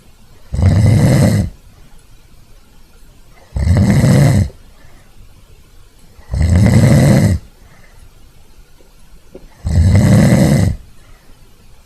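A sleeping dog snoring: four snores in a steady rhythm, each about a second long, coming about every three seconds.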